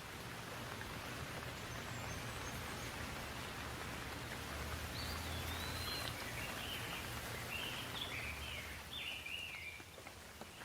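Steady rain falling, an even hiss. About halfway through, a bird calls a run of quick, gliding chirps over it. The rain hiss eases slightly near the end.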